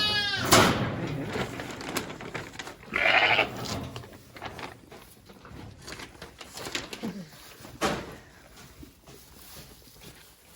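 Sheep bleating: a wavering bleat at the very start and a shorter one about three seconds in, with scattered knocks and rustles between.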